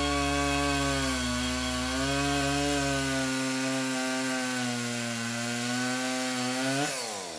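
Chainsaw engine running at a steady pitch that wavers slightly, then winding down in a falling pitch near the end. A low hum underneath cuts out about three seconds in.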